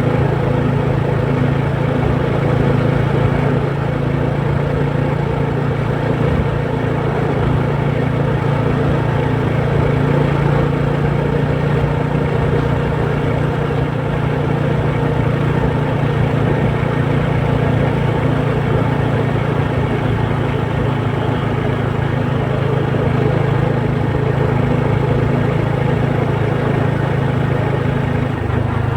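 An engine running steadily, a constant low drone with a steady hum that shifts slightly near the end.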